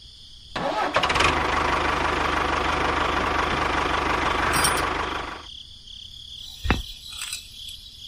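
Tractor engine starting up and running steadily for about five seconds, with a low, even firing beat, then stopping. A single sharp click follows about a second later.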